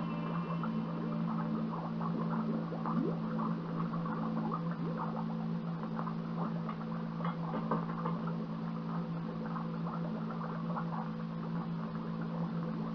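Steady low electrical hum, with faint scattered clicks and squeaks above it.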